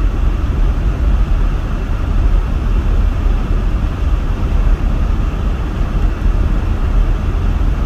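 Steady rumble and hiss of a van driving on snowy roads, heard from inside the cabin, with engine and tyre noise and no distinct events.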